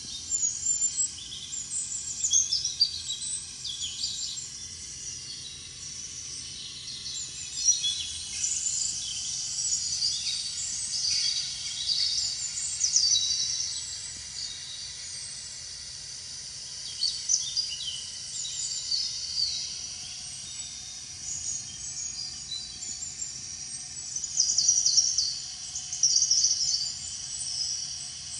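Many small birds chirping, with quick high chirps coming in flurries over a steady low background noise.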